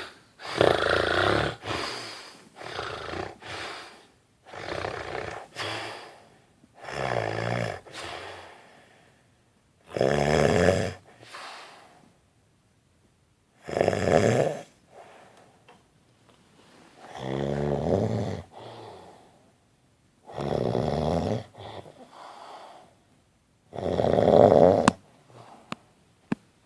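A man snoring in his sleep: a loud, rasping snore about every three and a half seconds, with softer breaths between them.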